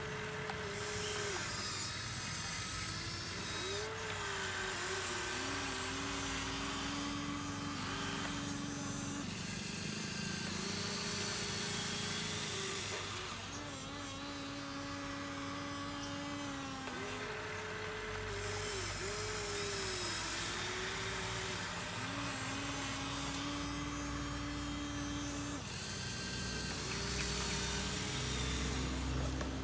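Small electric gear motors of a Huina 1593 RC excavator whining as it works, starting and stopping every few seconds with the pitch stepping between a higher and a lower level.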